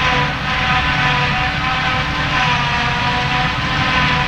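CLAAS Jaguar 940 forage harvester chopping grass: a steady low engine rumble under a high, even whine from the chopping and blowing gear.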